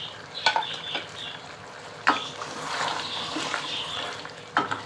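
Wooden spoon stirring goat trotters in thick, wet gravy in a metal pot, with three sharp knocks of the spoon against the pot, about half a second, two seconds and four and a half seconds in.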